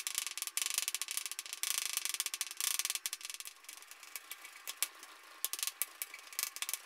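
Chef's knife rapidly chopping garlic cloves on a wooden cutting board: a fast run of blade taps on the board, thinning to scattered single strikes after about four seconds.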